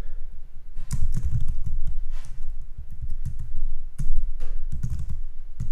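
Typing on a computer keyboard: an irregular run of keystrokes.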